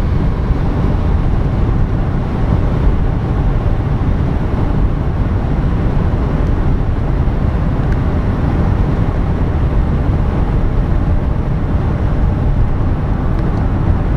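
Steady low rumble of road and engine noise inside a car's cabin, cruising at highway speed.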